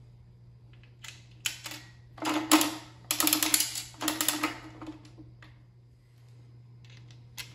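Coin mechanism of a vintage Acorn nickel gumball machine being turned by hand: runs of metal ratcheting clicks in several bursts, then a few faint clicks near the end.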